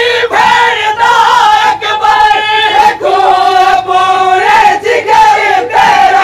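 A crowd of men loudly chanting a Siraiki noha, a mourning lament, together in long held, wavering lines.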